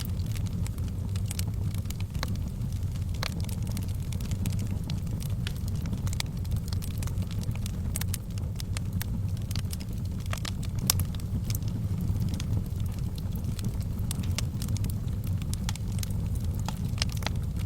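Fire burning in a fireplace: a steady low rumble of flames with frequent sharp crackles and pops, one louder pop about eleven seconds in.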